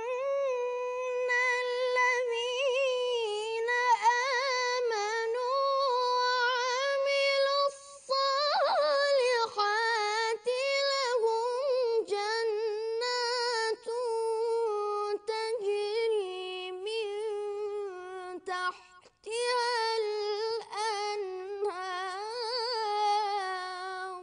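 A boy's high voice reciting the Quran in the melodic majlisi (mujawwad) style: long held, ornamented phrases with a wavering pitch, with two brief pauses, about eight seconds in and near nineteen seconds.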